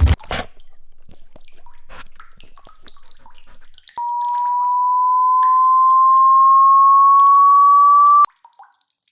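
A brief burst of noise at the very start, then faint scattered drips and ticks. About four seconds in, a pure electronic tone near 1 kHz comes in suddenly, rises slowly in pitch and grows louder for about four seconds, then cuts off with a click.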